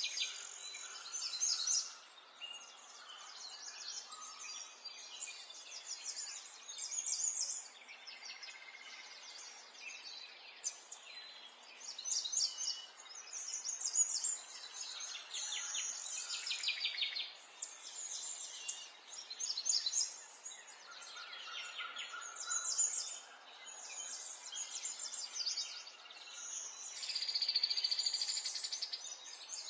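Several songbirds singing and calling, with one bird song following another in quick succession and many short, rapid trills and twitters, over a faint, steady background noise.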